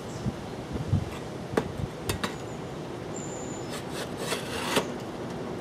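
A carved wooden thunderbird on a steel mount being fitted onto the top of a square steel box-section post: a few sharp knocks about a second and a half to two seconds in, then scraping and rubbing near the end as it slides into place.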